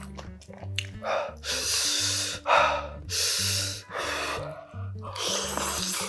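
A person slurps spicy ramen noodles and broth in several long, noisy slurps, the loudest a sharp one about two and a half seconds in. Background music with a steady beat plays underneath.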